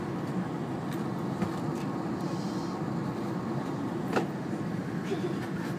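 Steady running rumble of an E2-series Shinkansen heard inside the passenger car, with scattered light clicks and one sharper knock about four seconds in.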